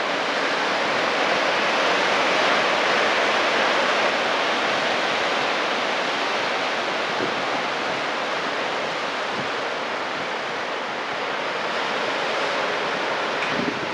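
Pacific Ocean surf breaking and washing over a rocky shoreline: a steady rush of foaming water that swells a little a couple of seconds in and eases off later.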